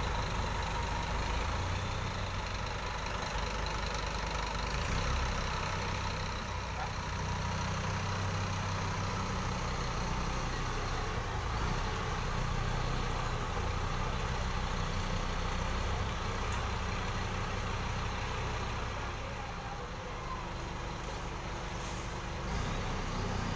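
Scania tour coach's diesel engine running steadily at low revs as the bus is manoeuvred slowly into position.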